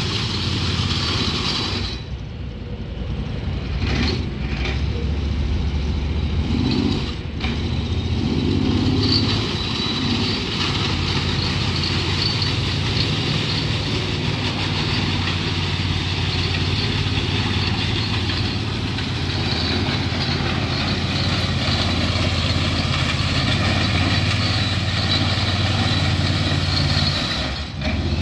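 Honda GX690 V-twin engine of a Tsuzumi TMG36 ride-on power trowel running steadily as the machine is driven around with its rotors turning. The level dips briefly about two seconds in and again near the end.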